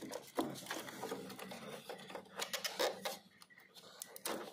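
Irregular clicks and knocks of hands handling the plastic wiring coupler and hoses on a diesel fuel filter housing, working the coupler loose.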